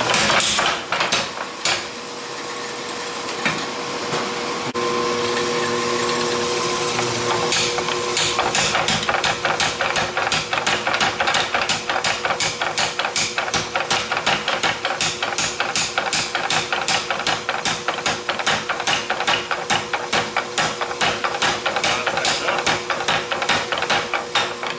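Rapid, evenly spaced hammer blows on steel being forged, about four a second, starting a few seconds in after some scattered strikes, with a steady machine hum underneath.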